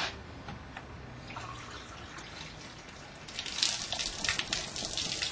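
Liquid running and splashing, growing busier and louder about three seconds in.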